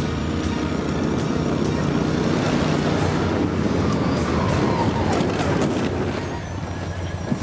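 Engines of a quad bike and a six-wheeled all-terrain vehicle running as they drive up and come to a stop. The engine noise eases off about six seconds in.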